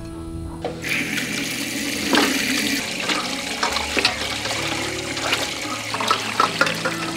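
Water running from a tap into a stainless-steel sink basin, starting about a second in, splashing as hands wash raw pork pieces under the stream.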